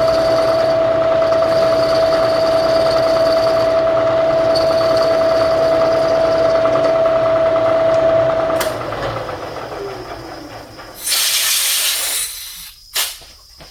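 Milling machine spindle running at a steady whine. It spins down with a falling pitch about two thirds of the way in. Then comes a loud hiss of about a second, and a shorter hiss just after.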